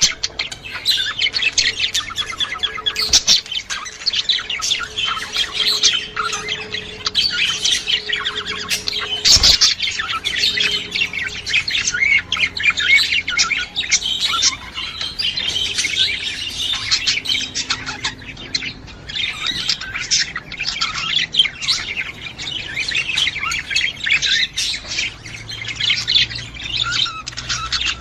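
Several budgerigars chattering and warbling without a break, a dense stream of quick chirps and clicks.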